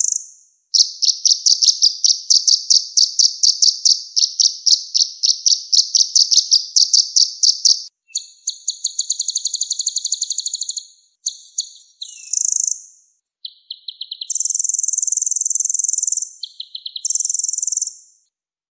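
Konin songbird singing from a masteran song recording: a long run of rapidly repeated high notes, about four a second, then fast rolling trills and two long buzzy trills near the end.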